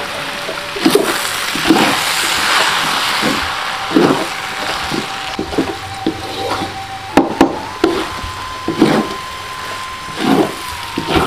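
Wooden spatula scraping and knocking against a wok as kwetiau noodles are stir-fried, in irregular strokes about once a second over a steady sizzle of frying.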